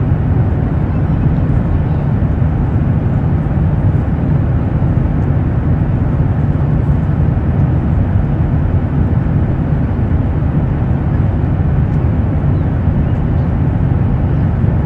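Airplane engine noise: a steady low rumble that holds an even level throughout.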